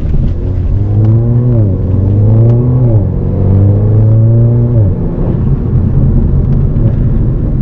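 Mercedes-Benz CLA 45 AMG's turbocharged 2.0-litre four-cylinder accelerating hard, its note rising through the gears with two quick upshifts about a second and a half apart. About five seconds in the throttle is lifted and the engine falls back to a steady rumble.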